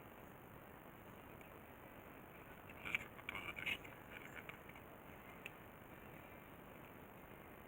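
A quick cluster of clicks and rattles from small hard parts being handled and set down on a workbench, loudest about three seconds in, then one more single click.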